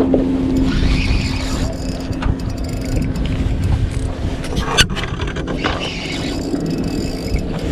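Boat engine running steadily, with one sharp knock about five seconds in.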